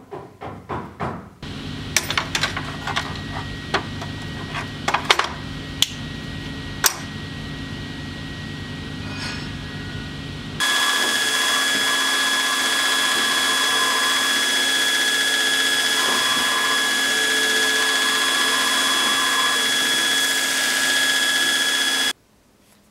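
Workshop machinery running: a steady low hum with scattered clicks and knocks. About ten seconds in, a surface grinder starts abruptly and runs steadily with a high whine, then cuts off near the end.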